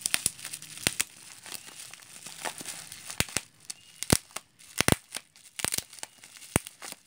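Bubble wrap being handled and pulled open by hand: plastic crinkling and rustling with scattered sharp snaps, the loudest snaps coming in the second half.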